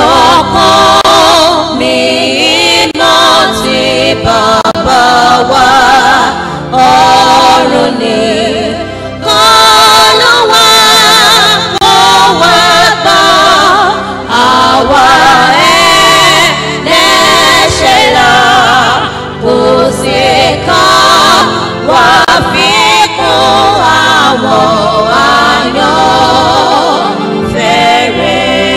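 A choir singing a gospel song with instrumental backing, in phrases a few seconds long with short breaks between them.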